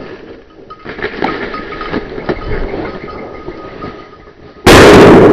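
Irregular rustling and crunching with faint clinks, as of walking through brush to a downed bird. About four and a half seconds in, a sudden loud, steady rushing noise takes over.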